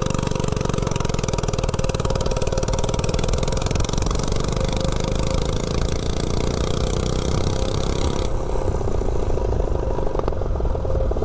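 A 179cc single-cylinder snowblower engine on a Coleman CC100X mini bike, running with no exhaust pipe, pulls hard as the bike accelerates from a standstill toward 30 mph. The upper hiss in the sound drops away about eight seconds in.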